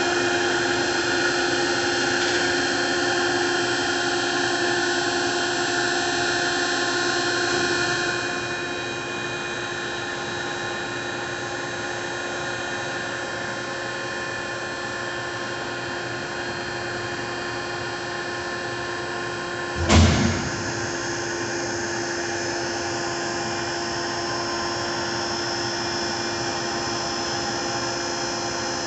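Electric motor and hydraulic pump of a Fox vertical cardboard baler running with a steady whine. It eases off slightly about eight seconds in, and a single loud clunk comes about twenty seconds in.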